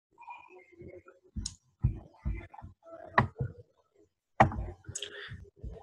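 Irregular computer mouse clicks and soft knocks on a desk close to the microphone, several short sharp strokes, while a screen recording is being set up.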